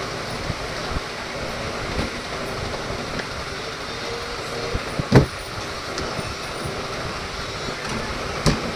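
Washing machine running with a steady rumble and a knock about once a second, the loudest knock about five seconds in: the kind of noise fault being diagnosed.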